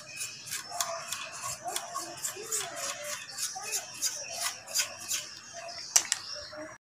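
Paintbrush bristles scrubbing dust off a CRT television's circuit board: a quick, uneven run of light scratches and ticks as the brush flicks over the components, with one sharper click near the end.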